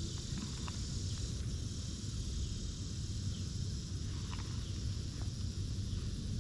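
Steady insect chorus, an even high buzz that drops back about a second and a half in, over a low steady rumble, with a few faint clicks.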